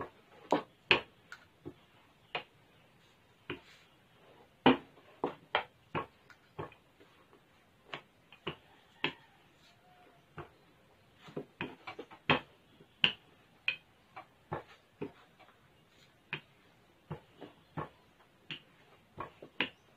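Wooden rolling pin knocking and clacking against a floured wooden board as dough is rolled out: a string of sharp, irregular clicks, one to three a second.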